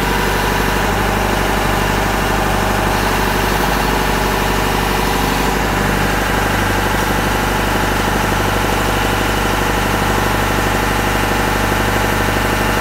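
Engine of a self-propelled boom lift running steadily at idle, a constant even hum with no change in speed.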